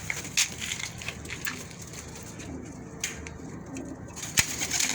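Domestic pigeons cooing softly, with scattered clicks and scuffs and one sharper knock near the end.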